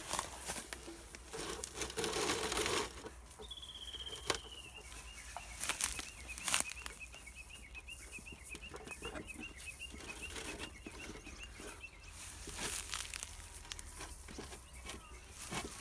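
Rustling and scraping with a few sharp knocks as the wooden hive box is handled and settled. A bird sings in the background a few seconds in: a high note gliding down, then a long, even, high trill.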